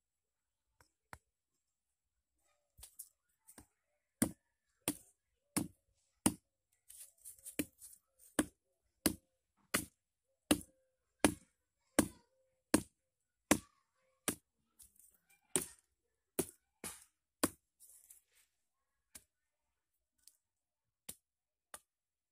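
Hafted stone axe chopping into a thin sapling trunk: a steady run of sharp strikes, about one every 0.7 seconds, with lighter knocks between them. The blows begin a few seconds in and thin out to a few faint knocks near the end.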